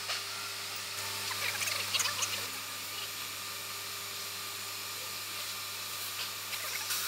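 Steady hum and hiss of a metal laser melting machine at work, with short spells of faint crackling ticks about a second in and again near the end.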